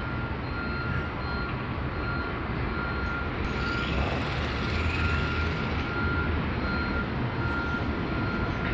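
Alstom Citadis light rail tram running past below, its low rumble swelling about halfway through as it passes underneath. A short electronic beep repeats at an even pace, about once a second.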